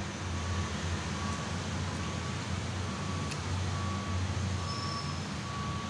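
Steady low hum with a hiss over it, like an engine or traffic running, and a faint short beep repeating about once a second.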